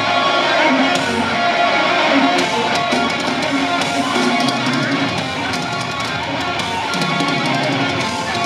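Thrash metal band playing live: electric guitars over a drum kit.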